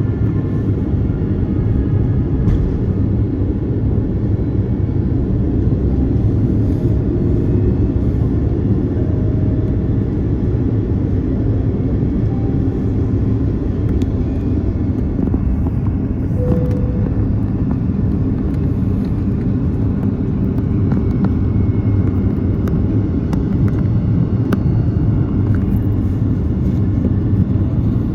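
Steady low cabin rumble of an EVA Air Airbus A330-300 airliner: engine and airflow noise heard from inside the passenger cabin, even in level throughout.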